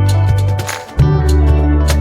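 Background music: a steady beat over a bass line and sustained melody notes, with a short drop in the bass just before a new phrase about a second in.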